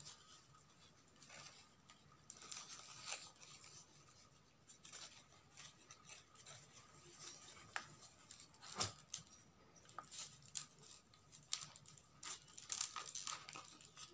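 Faint rustling and crinkling of ribbon being wound around a wicker basket handle by hand, with scattered small clicks and taps, a little busier near the end.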